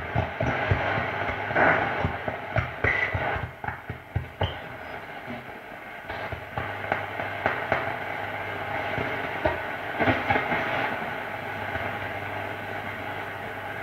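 1936 RCA C8-20 tube console radio being tuned across the band: static and crackle with brief snatches of station audio from its speaker. A steady low hum sits underneath from about five seconds in.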